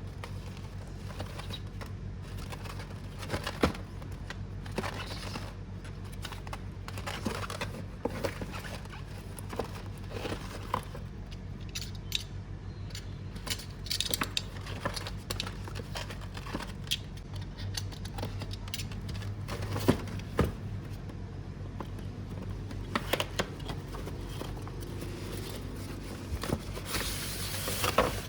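Packaging of a diecast model car being handled and opened: cardboard and plastic rustling and crinkling, with scattered sharp clicks and taps. A steady low hum runs underneath.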